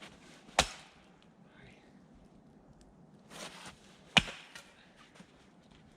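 Two sharp axe strikes into firewood being split, about three and a half seconds apart.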